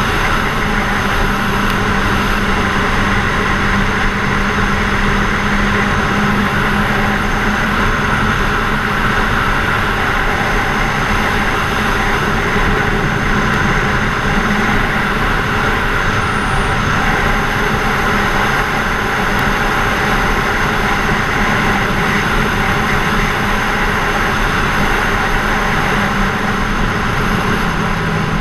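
Kawasaki Z1000SX's inline-four engine running at a steady cruise, its pitch holding even and easing off slightly near the end, under strong wind rush over the microphone from the moving motorcycle.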